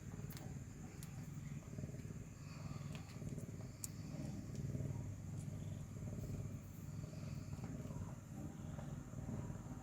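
A cat purring steadily close by, with a few faint clicks.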